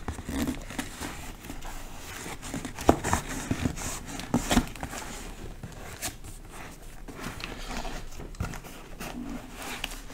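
Packing tape being cut and torn off a taped cardboard parcel, with rustling, scraping and irregular knocks as the box is handled and turned over.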